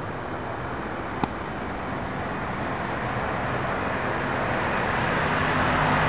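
Road traffic noise: a steady rush that grows gradually louder, as of a vehicle approaching, with one sharp click about a second in.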